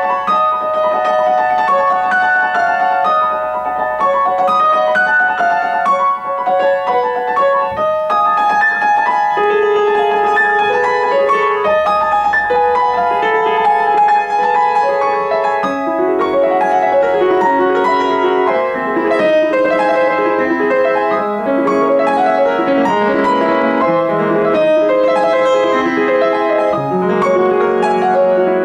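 Grand piano played solo. The melody first moves in the upper-middle range; from about halfway through, lower notes join and the playing grows fuller.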